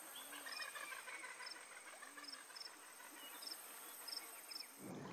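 Faint tropical forest ambience: a steady high insect drone with short chirps repeating every half second or so, and birds twittering, mostly in the first second. The insect drone stops just before the end.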